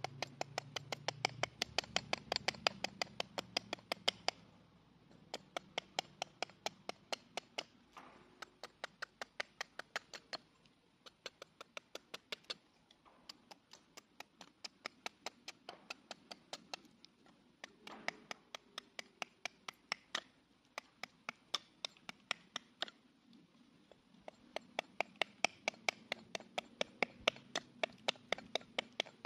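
Cold Steel Trail Hawk tomahawk, held choked up at the head, making rapid light chops into a small stick resting on a stump: runs of sharp wooden clicks, about five a second, broken by short pauses.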